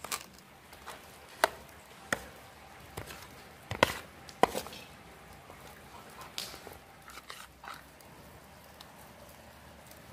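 A spoon knocks and scrapes against a steel plate while it stirs minced beef, flour and chopped tomatoes into chapli kabab mixture. The sharp clicks come irregularly; the loudest are two close together about four seconds in.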